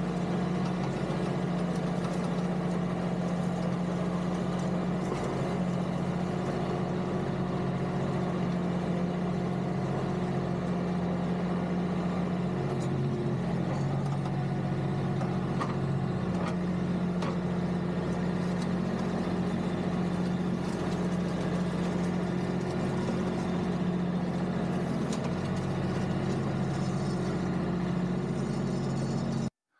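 Kioti DK5320 compact tractor's diesel engine running steadily, with its note shifting briefly near the middle.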